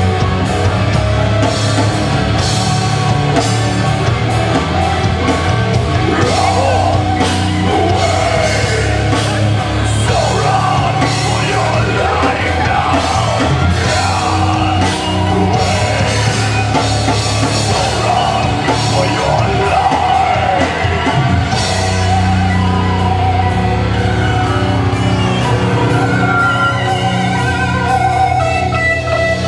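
Live rock band playing loud, with drum kit, electric guitar and bass, and a voice singing over the middle stretch. Near the end a long note is held over the band.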